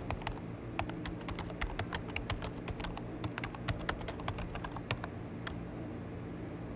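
Keyboard typing: a quick, irregular run of keystroke clicks, several a second, as a phone number is keyed in. The clicks stop about five and a half seconds in, leaving a low steady hum.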